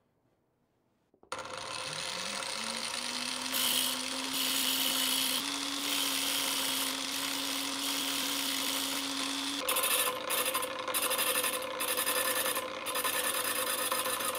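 Angle grinder starting and running with a steady whine that climbs briefly and then holds its pitch, while a steel twist drill in a wooden jig is ground against the wheel in long rasping passes. About two-thirds through the grinding turns into short, repeated touches of the bit on the wheel.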